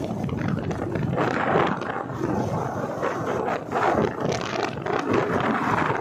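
Wind rushing and buffeting over the phone's microphone on a moving motorcycle, with the motorcycle's running and road noise underneath.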